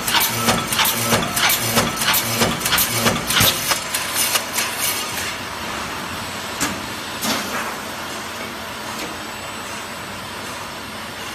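Punch press stamping EOE basic shells from tinplate sheet, its strokes coming fast and even at about three a second. The stamping stops about five seconds in, leaving the line's steady machine hum with a couple of single metal clanks.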